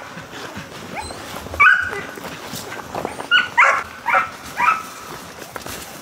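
A dog barking in short, high yips, about five times, most of them in a quick run in the second half.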